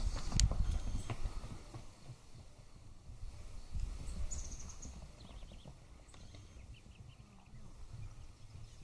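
Thunder rumbling, loudest at the start and dying away over about two seconds, then swelling again more faintly twice.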